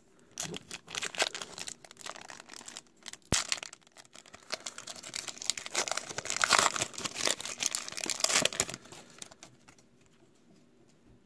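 Foil wrapper of a trading card pack crinkling and tearing as it is opened by hand, the crackle busiest in the middle and dying away near the end.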